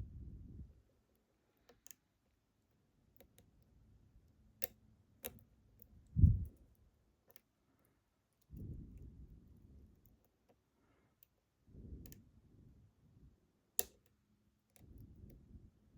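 Scattered small clicks of a pick working the pins inside a Ruko 600 lock, with a few low handling thumps, the loudest about six seconds in.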